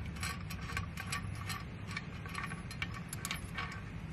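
Socket ratchet clicking in quick irregular runs, several clicks a second, as the top bolt of the antenna's tilting base is backed out.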